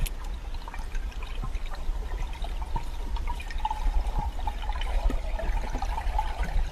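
Underwater water noise: a steady low rumble of moving water with scattered small clicks and crackles.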